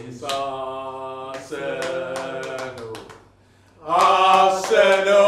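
A group of men's voices in long, drawn-out chant-like calls, then loud excited shouting from about four seconds in.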